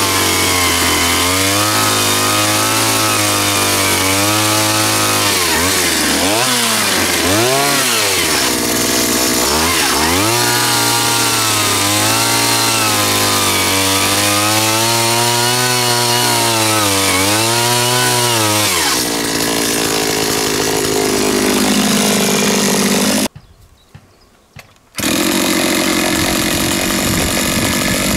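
A power tool working under load: its motor hum sags in pitch again and again as it bites in, then gives way to a steadier rushing noise. The sound drops out suddenly for under two seconds and then resumes.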